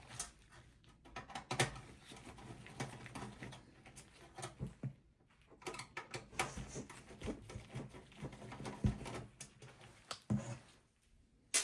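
Screwdriver and hands working on a desktop PC's metal chassis to remove the power-supply screws: irregular light clicks, scrapes and small knocks, with one sharp clack at the very end.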